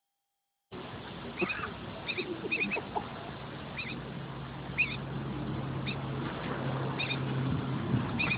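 Young bird giving short, high chirps, often in quick pairs, every half second to a second: the begging calls of a fledgling asking to be fed. A low steady hum runs underneath from about four seconds in.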